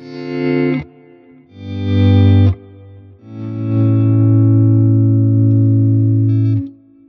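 Electric guitar played through a Fender Tone Master Pro modeler, with volume-pedal swells. Three chords fade in from silence. The first two are short, and the third is held for about three seconds before cutting off.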